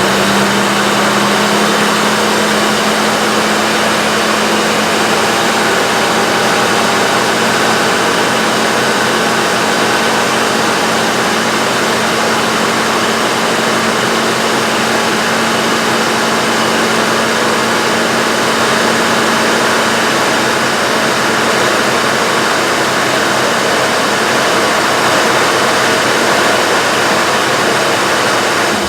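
1984 Mercedes-Benz 500SL's M117 V8 with K-Jetronic injection running steadily. It now starts because the fuel pump relay's cracked cold-solder joint has been repaired.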